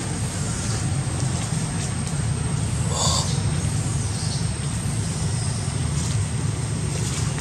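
Steady low background rumble with a thin, steady high whine above it, and a short high-pitched call about three seconds in.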